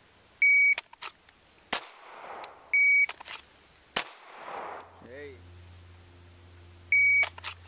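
An electronic shot timer beeps, and about a second and a quarter later a single handgun shot cracks out, a draw-and-fire drill. This happens twice, and a third beep sounds near the end.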